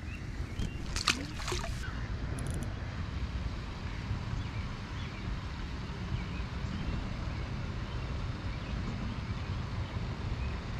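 Wind buffeting the microphone, a steady low rumble, with a couple of sharp clicks about a second in.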